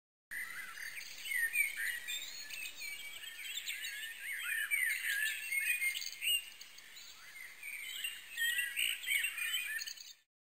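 Many small birds chirping and calling together in a dense chorus of quick, overlapping chirps. It cuts off abruptly near the end.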